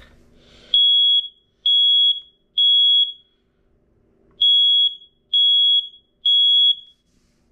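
Family Gard smoke alarm sounding on its test button: two rounds of three loud, high-pitched beeps, about a second apart, with a longer pause between the rounds. This is the temporal-three evacuation pattern.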